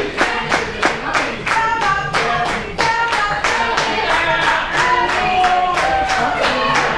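A group of people singing together without instruments, clapping hands in a steady beat of about three claps a second.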